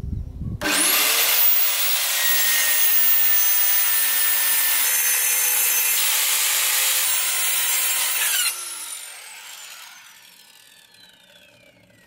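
After a short thump, an electric power saw starts with a quickly rising whine, cuts steadily through a wooden board for about eight seconds, then is released and winds down with a slowly falling whine as the blade coasts to a stop.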